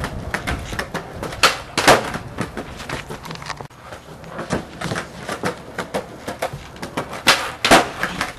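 Skateboard on concrete: wheels rolling, with sharp wooden clacks of the board. Twice there are two loud clacks about half a second apart, typical of a tail pop and a landing.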